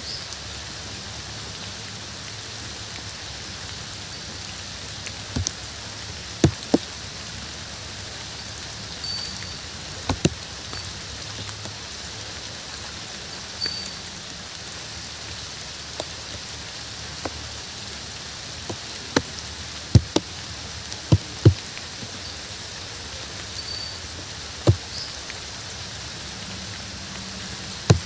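Steady rain falling, with scattered sharp, loud drips landing now and then, several in quick succession about two-thirds of the way through.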